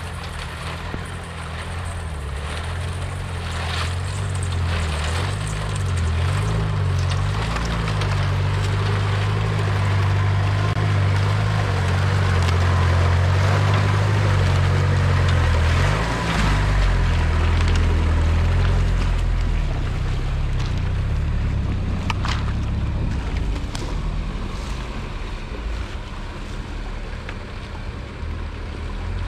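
Off-road 4x4's engine running under load, its revs rising and falling as it drives through snow, with a rushing noise of tyres and snow throughout. There is a single sharp knock about two-thirds of the way through.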